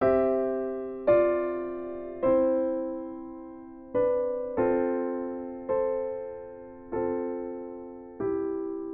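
Slow solo piano intro music: soft chords struck about once a second, each left to ring and fade before the next.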